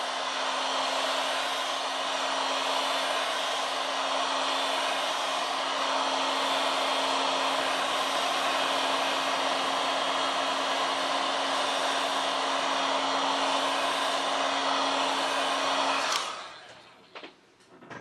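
Hot-air gun blowing steadily with a constant fan hum, heating a phone's back cover to soften its old adhesive. It switches off about sixteen seconds in, followed by a couple of light clicks.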